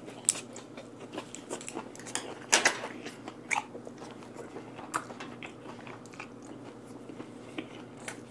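A person chewing a mouthful of vinegar-cured mackerel sashimi with radish sprouts, close to a clip-on microphone: irregular crisp crunches and wet mouth clicks, the loudest about two and a half seconds in.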